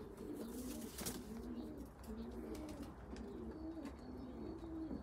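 Domestic pigeons cooing faintly in a loft: a steady run of low, rolling coos from several birds overlapping.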